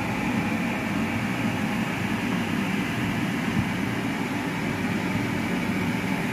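Steady droning noise of a running fan, even and unbroken.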